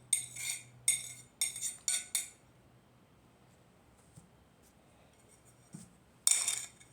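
A metal utensil clinking against a glass several times in quick succession as chopped garlic is scraped into it, then a single louder clink near the end.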